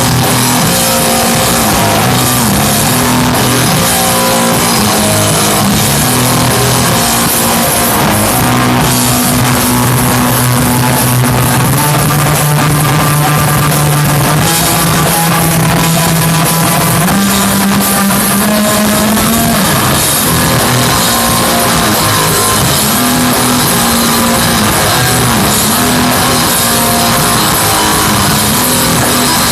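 Rock band playing an instrumental passage on guitars, bass and drum kit, loud and dense, with held low notes that change every few seconds.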